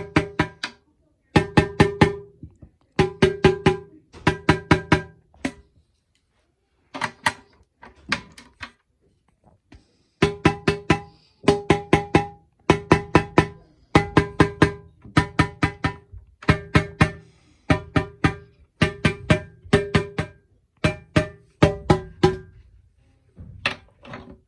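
Marching snare drum with its snare wires off, struck in quick groups of four or five taps with short pauses between, the freshly fitted head ringing with a clear pitch as each lug is tuned to match. The taps thin out and grow quieter for a few seconds midway.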